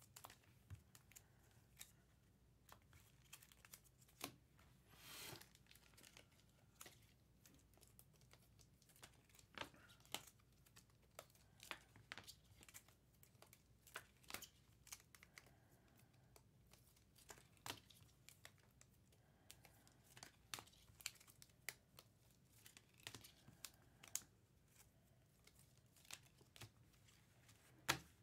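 Faint handling of trading-card packs and cards: scattered small clicks and ticks from cards being slid and flipped, with a few brief crinkling tears of pack wrappers.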